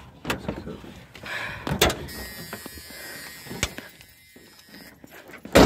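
A vehicle door being handled and someone stepping out onto gravel: scattered clicks and knocks, with the loudest sharp knock near the end.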